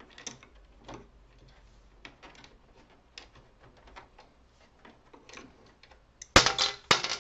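Light plastic clicks and taps as a Brother laser printer's fuser unit and its power connector are worked loose, then a loud two-part clatter near the end as the fuser is pulled free.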